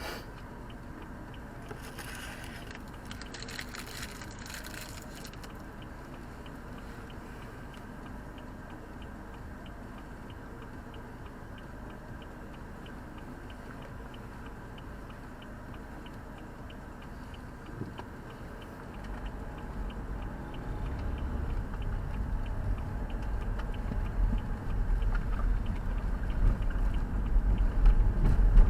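Road and engine noise inside a moving car: a steady low hum that, about two-thirds of the way in, turns into a low rumble growing steadily louder.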